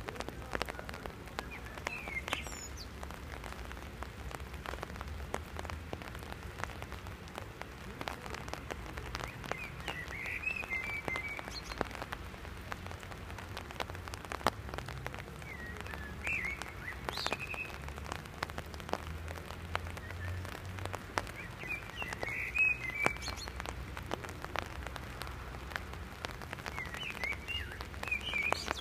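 Rain falling, with many scattered drops tapping on an umbrella overhead. A songbird sings five short phrases a few seconds apart.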